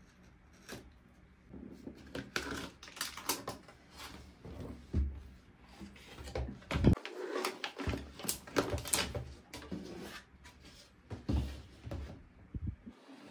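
Hands unboxing and handling plastic toy pieces and packaging: a run of clicks, taps and rustles, sparse at first and busier from about two seconds in, with the sharpest knock about seven seconds in.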